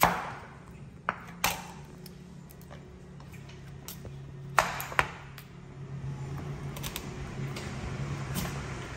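Kitchen knife slicing cooked pumpkin, the blade knocking on a wooden cutting board a handful of times, two quick knocks about halfway through, over a faint steady low hum.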